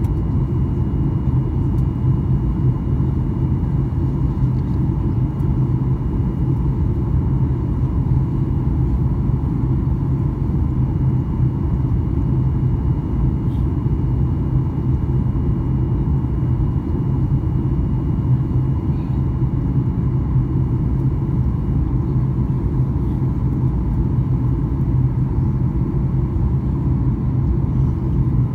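Steady low drone inside the cabin of a Boeing 737-800 on descent, heard from a window seat over the wing: the noise of its CFM56-7B engines and the airflow, even and unbroken.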